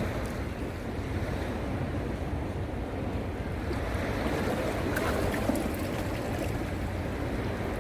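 Ocean surf breaking and washing on the beach, a steady rush with a swell about halfway through, over a low rumble of wind on the microphone.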